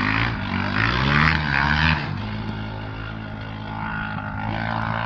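An engine running, its pitch rising over the first second or so, dropping back about two seconds in and then holding steady.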